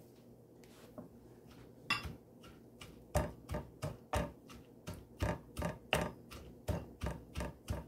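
Pestle pounding in a small mortar: a few scattered knocks, then a steady run of strokes at about three a second from about three seconds in.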